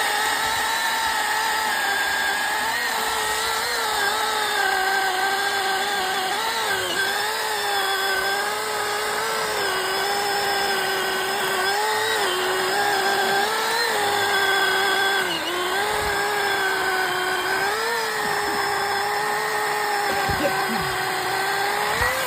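Milwaukee Fuel battery-electric chainsaw cutting through a big tree limb in one long cut: a steady motor whine that sags in pitch every couple of seconds as the chain loads up in the wood, then recovers.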